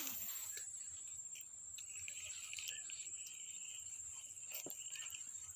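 Insects chirring steadily in a high, finely pulsed drone. A second, lower trill joins about two seconds in, with a few faint clicks.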